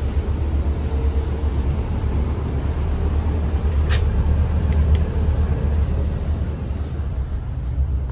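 Steady low drone of a passenger ferry's engines, heard from on board. Two brief sharp clicks come about four and five seconds in.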